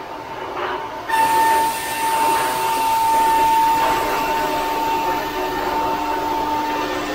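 C.R. Onsrud HM-Series 5-axis milling center's high-speed spindle milling aluminium: a steady high-pitched whine of the cutter over a hiss, cutting in abruptly about a second in.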